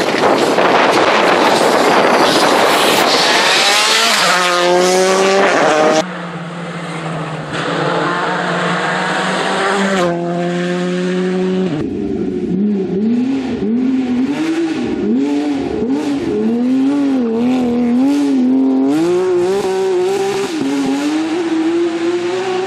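Rally cars driven hard on a stage, in several short clips that change abruptly. The first car is loud with a dense hiss of tyre noise over its engine. After that come steadier engine notes, then an engine revving up and dropping back again and again through the corners.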